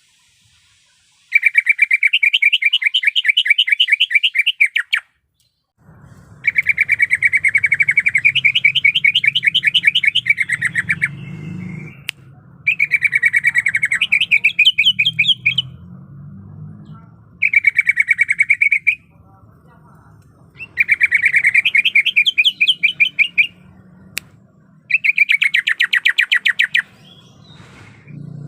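Green leafbird (cucak ijo) singing six loud, rapid trilled phrases of fast repeated notes, separated by short pauses. A faint low hum runs underneath from about six seconds in.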